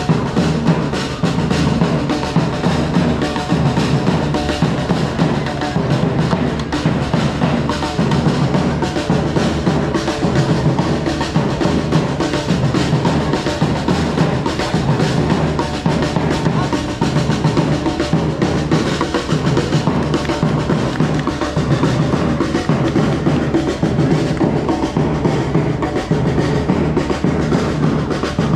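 Drums playing a steady, continuous beat, with bass drum and snare.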